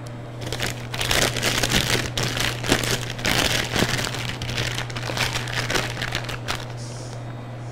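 Clear plastic disposable piping bag crinkling and crackling as it is handled in the hands, dying down near the end.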